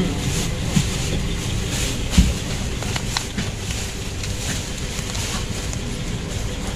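Foam mesh fruit sleeves and tissue wrapping rustling as a hand pulls them apart, over a steady low rumble of background noise, with a dull bump about two seconds in.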